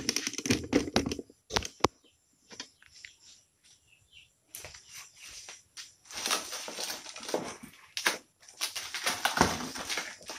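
Clear plastic wrapping crinkling and rustling as it is pulled and torn off a cardboard box, in long crackly stretches through the second half. A few sharp knocks and clicks come in the first two seconds.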